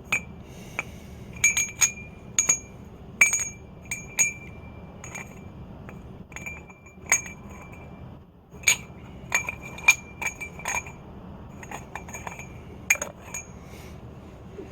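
Irregular light metallic clinks and taps, each with a short bright ring, like metal tools or small parts knocked together while being handled. They are spread unevenly over the whole stretch, with a brief lull about eight seconds in.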